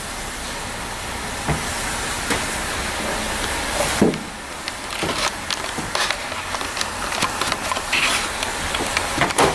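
Junk being rummaged through in a dumpster: scattered clicks and knocks of plastic and metal items being shifted, with a heavier knock about four seconds in, over a steady hiss.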